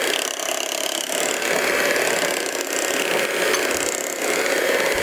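Electric hand mixer running steadily, its beaters beating eggs into thick chocolate cake batter in a glass bowl.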